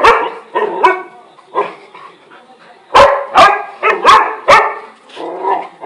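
Large Fila Brasileiro dogs barking loudly in short, repeated barks, a few near the start and then a quick run of barks in the middle.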